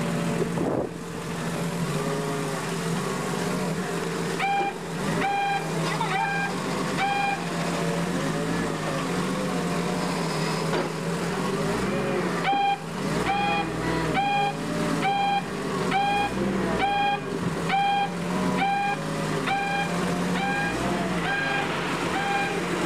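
A forklift's warning beeper sounds in evenly spaced beeps, about three every two seconds, over its running engine. There is a short run of four beeps a few seconds in, then a longer unbroken run from about halfway through.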